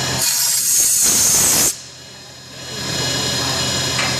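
CNC machine running with a steady hum and several fixed whining tones. About a quarter second in, a loud high hiss starts and cuts off suddenly after about a second and a half. The machine sound then drops away and builds back up over about a second.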